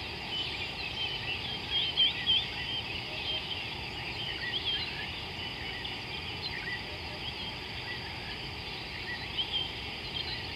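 Many wild birds chirping and whistling in short, scattered calls over a steady high hiss and low outdoor background noise.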